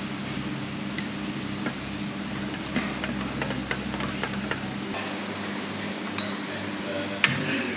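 Light scattered clinks and taps of dishes and cutlery over a steady low hum; the deepest part of the hum drops away about five seconds in.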